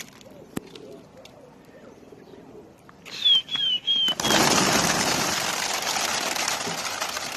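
Domestic Maslawi pigeons cooing faintly, then a few short high chirps, and about four seconds in a loud rush of flapping wings that slowly fades.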